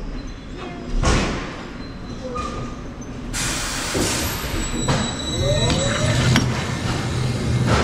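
Roller coaster train being dispatched from its station: a thud about a second in, a loud hiss of air from about three seconds in, then a steady low hum as the train starts to roll, with a few short squeaks.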